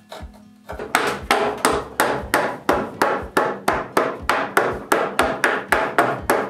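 Rapid, evenly paced blows of a hand striking tool on the oak desk frame: about three sharp knocks a second, starting just under a second in.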